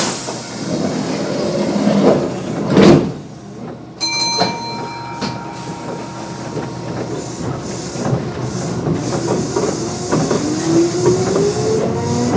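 Inside a Kintetsu 9200 series train as it pulls out of a station: a loud thump of the doors shutting about three seconds in, a short tone about a second later, then from about ten seconds in the field-chopper-controlled traction motors whining and rising steadily in pitch as the train accelerates.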